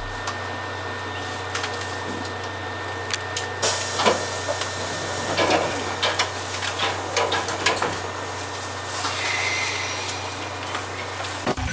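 Inside the cab of a stationary Kotoden electric train: a steady low hum from its onboard equipment under a broad running noise, with scattered clicks and knocks.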